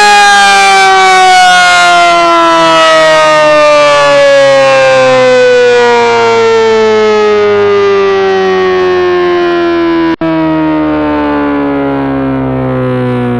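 Sentry 16V1T-B electromechanical siren sounding loudly in attack mode, its tone sliding slowly and steadily down in pitch as the rotor winds down, with a momentary cut-out about ten seconds in.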